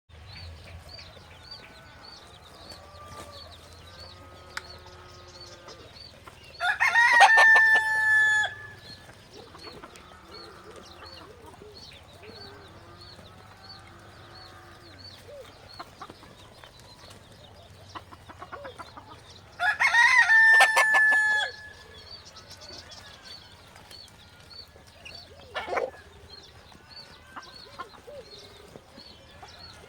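Rooster crowing twice, each crow about two seconds long, the second coming about thirteen seconds after the first. Between the crows, chickens cluck softly under a faint high chirp that repeats about twice a second.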